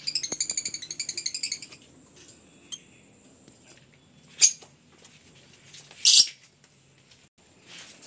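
Lovebirds calling: a fast run of high-pitched chattering chirps for nearly two seconds, then two loud, shrill shrieks about four and six seconds in.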